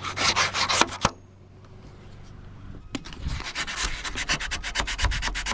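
600-grit sandpaper rubbed quickly back and forth over corroded electrical connector terminals to clean them, in two runs of rapid scratchy strokes with a quieter pause between them, the second run at about five or six strokes a second.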